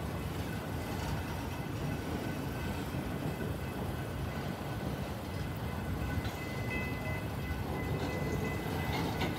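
Long BNSF freight train of autorack cars rolling slowly past: a steady low rumble of wheels on the rails, with faint thin high tones near the end.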